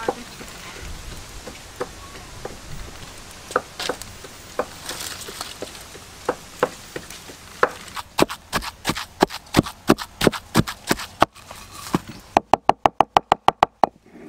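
Dry sticks being handled and snapped, a string of sharp cracks that comes quicker from about eight seconds in. Near the end, a pestle pounding in a wooden mortar, a fast even beat of about seven strokes a second.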